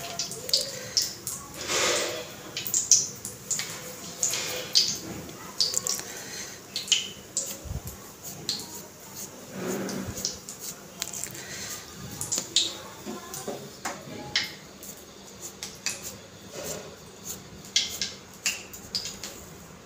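Hands squeezing and patting a soft mashed potato-and-bread mixture in a plastic bowl and pressing it flat on the palm: irregular soft pats and small clicks.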